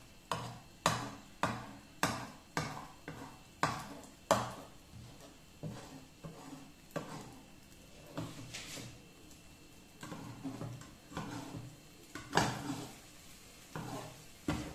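Slotted metal spatula tapping and scraping against a nonstick frying pan while a thin egg omelette is worked loose. Sharp clacks come about two a second for the first few seconds, then more sparsely, with a louder cluster near the end.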